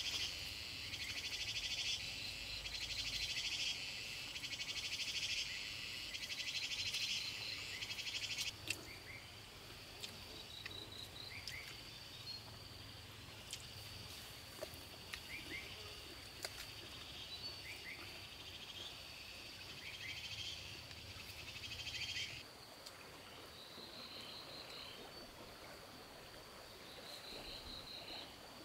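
Insects and frogs calling: a loud pulsing buzz stops about eight seconds in, leaving a steady high trill with short repeated chirps and a few clicks.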